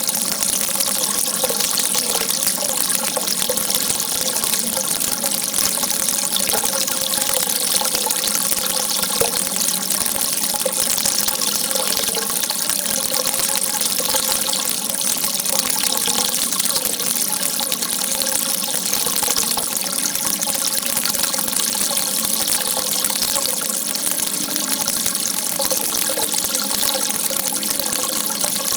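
A strong stream of water rushing steadily and evenly, with a bright hiss.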